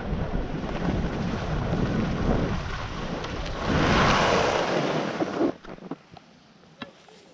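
Wind buffeting the microphone: loud, even rumbling noise that swells about four seconds in, then cuts off suddenly, leaving only a few faint clicks.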